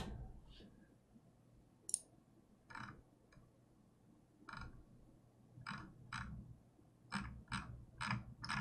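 Faint, scattered clicks of computer keyboard keys: a few spaced apart at first, then a quicker run of about three a second near the end.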